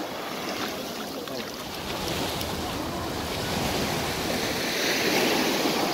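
Sea surf washing onto a beach, a steady rush of water that swells louder about four to five seconds in.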